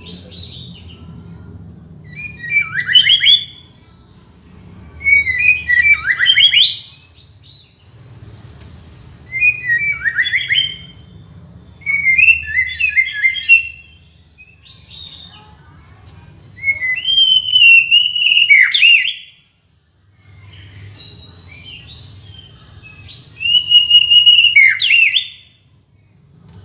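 White-rumped shama singing: about six loud, varied whistled song phrases, each a second or two long, with short pauses between them. A faint low rumble runs underneath.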